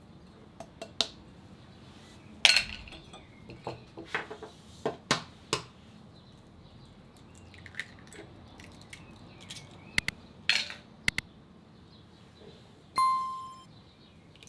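Scattered knocks, scrapes and clinks of a bowl and utensil as pâte sucrée dough is mixed and brought together, with one ringing clink near the end.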